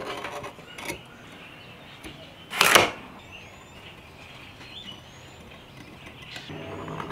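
A steel scribe scratching layout lines through dye on a metal bar, guided by a speed square: a few short scrapes and light taps of tool on metal, the loudest a sharp scrape about two and a half seconds in.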